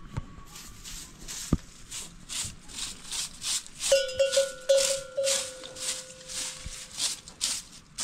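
Dry rustling repeated about three times a second. About halfway through, a livestock bell clanks several times in quick succession, then rings on for a couple of seconds.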